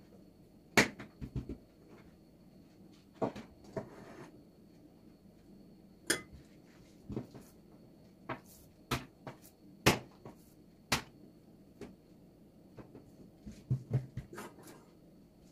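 Scattered sharp knocks and clicks of kitchen utensils against a work surface, about a dozen at irregular intervals.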